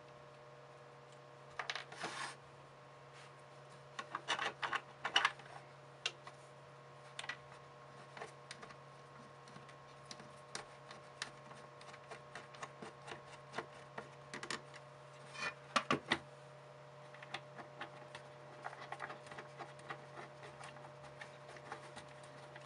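Small plastic clicks, taps and short scrapes of 3D-printed PLA and ABS brake-caliper parts being handled and their printed bolts turned by hand, with a few louder rattling scrapes, over a steady low hum.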